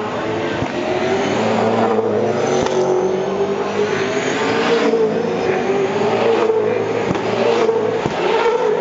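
V8 Supercar race cars' V8 engines running at speed past the fence, several cars in succession. The sound is loud and continuous, and the engine note rises and falls slightly as the cars go by.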